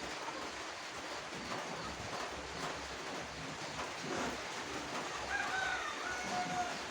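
Steady background hiss with a few short bird calls, the last two seconds or so before the end.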